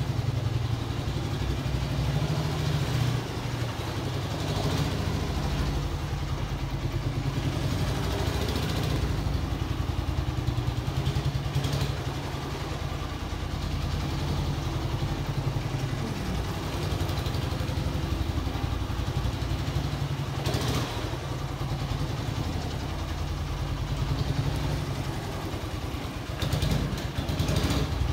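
1974 Honda TL125 trials motorcycle's single-cylinder four-stroke engine running at low speed while ridden slowly in tight turns, a steady chugging with small changes of throttle; it gets a little louder near the end.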